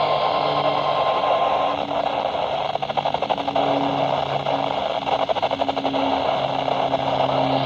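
Weather radio receiver hissing with static, with a steady low hum under it and no voice coming through. A faint steady high tone in the static stops about two seconds in, and the hiss flutters rapidly through the middle.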